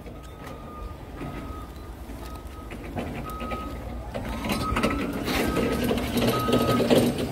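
A large truck's reversing alarm beeping about once a second, each beep a steady half-second tone, over a diesel engine that grows louder from about halfway through.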